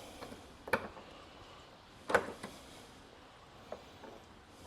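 A few scattered sharp knocks and clicks from hand tools and hood-latch hardware being handled: two louder ones about three-quarters of a second and two seconds in, and a fainter click later.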